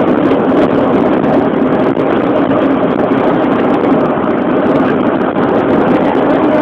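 Steady engine and road noise of a moving road vehicle, heard from inside as it drives along.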